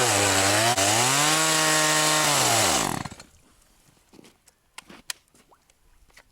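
Petrol chainsaw running hard under cutting load: the engine note sags deeply, then climbs back. About three seconds in it winds down and stops, leaving only faint clicks and knocks.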